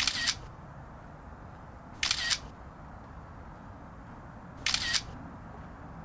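iPhone camera shutter sound, fired three times: at the start, about two seconds in and near five seconds in. Each is a quick double click, the shutter sound the uploader says was taken from a Canon AE-1 film camera.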